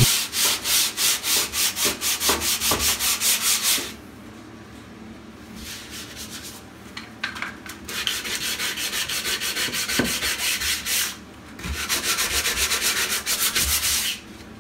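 Hand sanding block with 100-grit paper scraping back and forth over dried 20-minute setting-type joint compound on drywall, in quick rhythmic strokes several a second. It stops for a few seconds about four seconds in, then resumes. The compound is dense and slow to sand.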